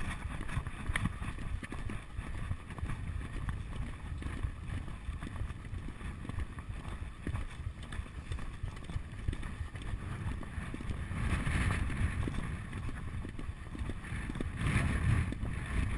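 Wind rushing over the microphone of a rider-mounted camera as a horse gallops, with its hoofbeats thudding underneath. The rush swells louder twice in the last few seconds.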